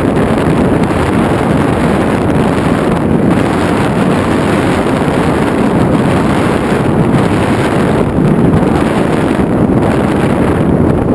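Loud, steady wind rush buffeting the microphone of a camera riding on an FPV model aircraft in flight, with no clear motor whine standing out.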